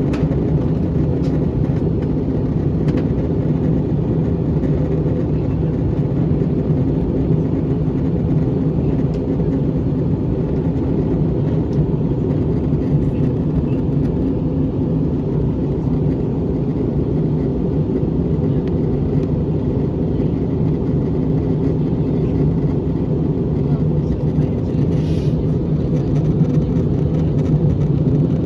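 Steady drone of an Airbus A321 in flight, engine and airflow noise heard from inside the passenger cabin.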